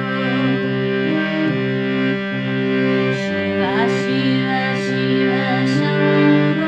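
Harmonium playing held chords under a slow chant melody, its reed notes sustained and changing every second or so.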